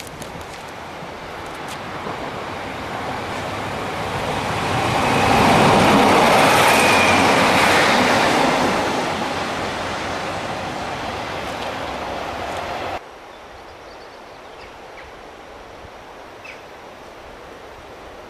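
A Class 156 diesel multiple unit passing on the rails, its wheels clattering. The sound swells to a peak about six seconds in, fades, and cuts off abruptly about thirteen seconds in, leaving quiet outdoor background noise.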